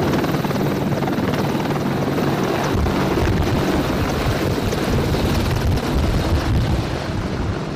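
AH-64 Apache attack helicopter's twin turboshaft engines and rotors at close range as it lifts off and flies low past. The heavy, low rotor beat grows stronger about three seconds in.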